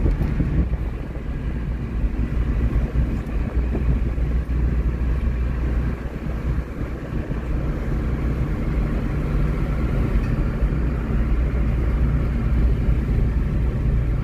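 Car driving at highway speed, a steady low rumble of engine and tyres on the road heard from inside the cabin.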